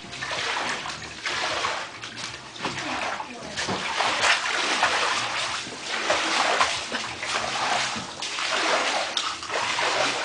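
Standing floodwater splashing and sloshing in uneven surges every second or two.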